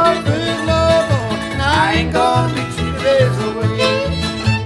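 Old-time string band of fiddle, mandolin, acoustic guitar and upright bass playing the last bars of a tune, the upright bass plucking a steady beat under the strings.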